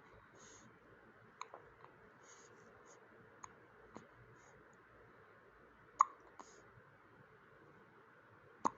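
A newborn baby hiccuping: short, sharp hiccups every second or two, the loudest about six seconds in and near the end.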